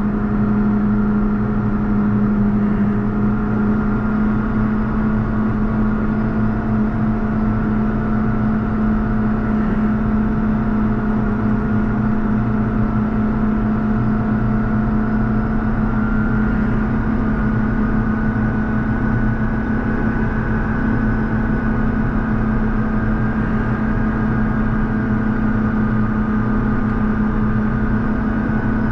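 JCB Fastrac 4220 tractor's diesel engine running steadily under load as it pushes a front snow plow through snow. Its note rises slightly a little past halfway.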